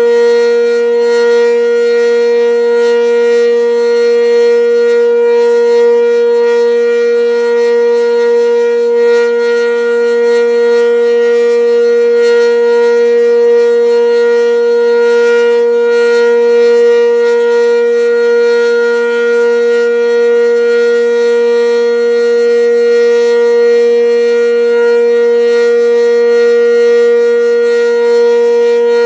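Sentry 10V electromechanical outdoor warning siren sounding a steady, unchanging tone for a tornado drill test. It is loud and holds one pitch the whole time, with no rise or fall.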